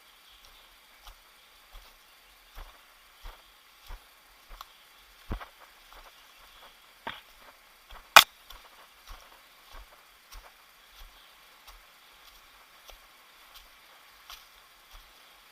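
Footsteps walking on a trail, about three steps every two seconds, with one much louder sharp click about eight seconds in.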